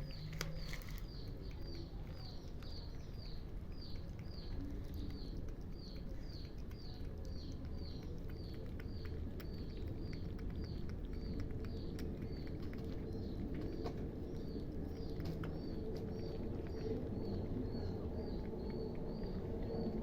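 A bird repeating one short chirp, about two or three times a second, over a steady low background noise with a few faint clicks.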